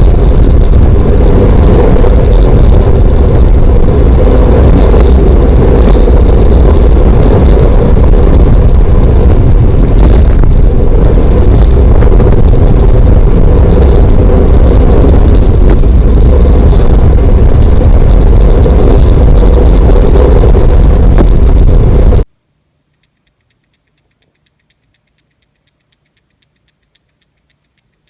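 Rattling noise picked up by a GoPro Hero 5 Black: a loud, distorted, continuous rumble that stops suddenly about 22 seconds in. After it, only faint ticks come, about three a second.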